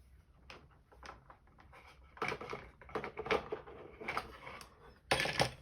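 Small hand tools and a parts tray being handled: scattered clicks and light clatter of hard objects, with a louder clatter near the end.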